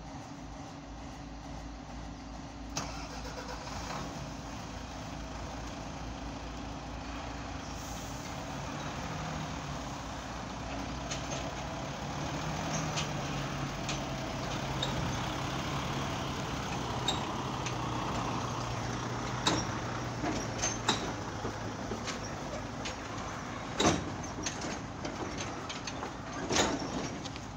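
Kato mobile crane's diesel engine running under load as it lifts and swings a 40-foot shipping container. The engine speeds up about nine seconds in and holds the higher speed for roughly ten seconds. A few sharp knocks come in the last third.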